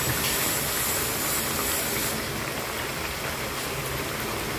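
Hot oil sizzling steadily as batter fritters fry in a pan, a continuous hiss that eases slightly about two seconds in.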